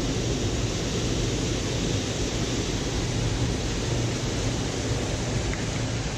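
Steady rush of a small waterfall pouring over a concrete spillway.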